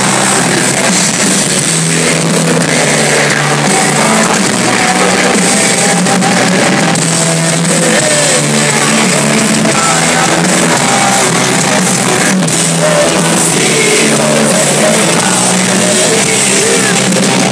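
Live rock band playing loud, heard from among the crowd.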